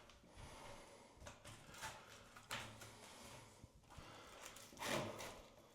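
Faint handling sounds of a frameless glass shower door being closed and its metal door catch shifted in and out: scattered light knocks and scrapes, with a slightly louder one about five seconds in.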